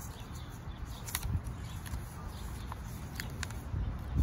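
A sheet of printer paper being folded and creased by hand for an origami boat: a few soft, short paper crackles over a steady low background rumble, with a dull thump near the end.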